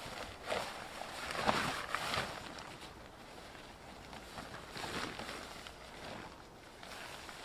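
Wind gusting through the woods and over the microphone: two swells, the stronger one about a second in and a weaker one around the middle.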